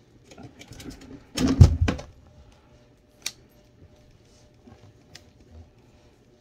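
Close handling noise against the phone's microphone: a short burst of rubbing and knocks about a second and a half in, then a single sharp click and a few faint ticks.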